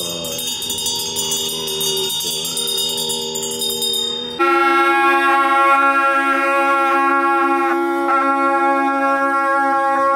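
Monks chanting with Tibetan hand bells (drilbu) ringing rapidly and continuously. About four seconds in it cuts abruptly to a pair of gyaling, Tibetan ceremonial reed horns, playing a loud held note with a slight waver.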